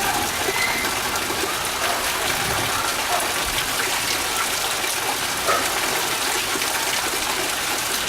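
Heavy monsoon rain and rushing rainwater making a steady, even rush of water.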